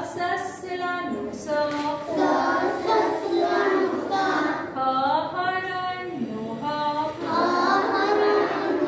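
A group of children's voices chanting letters of the Gujarati alphabet aloud in unison, in a sing-song rhythm, one syllable after another.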